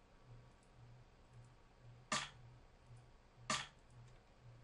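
Sampled drum-machine clap from an FL Studio step-sequencer pattern playing at a slow hip-hop tempo: two sharp hits, about two seconds in and again a second and a half later. Each hit has a short trailing tail, the 'little end part' that is later faded out to tighten the clap.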